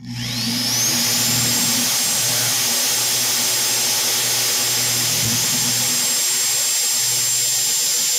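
Electric drill spinning up in the first second to a steady high whine, running at full speed as a twist bit bores a hole through PVC pipe.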